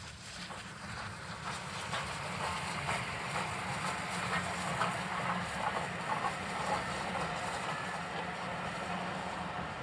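Three-cylinder Bulleid West Country class steam locomotive hauling a train of coaches past. Its exhaust and the running noise of wheels on rails grow louder over the first two seconds as it approaches, then hold steady.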